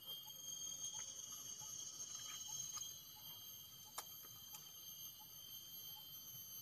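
Insects droning faintly in several steady high tones, with a few light clicks and taps from hand work, the sharpest about four seconds in.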